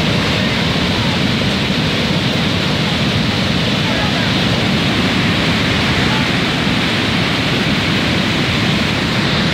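Flash flood of muddy, debris-laden water rushing down a stone-walled channel: a loud, steady rushing noise with no letup.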